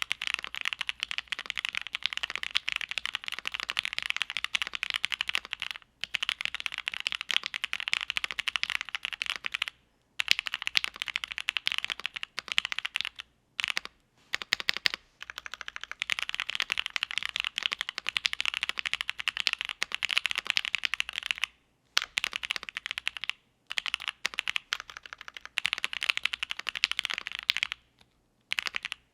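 Fast, continuous typing on a mechanical keyboard with Gateron Oil King linear switches, GMK keycaps and a polycarbonate plate: a dense run of keystroke clacks, broken by a few short pauses.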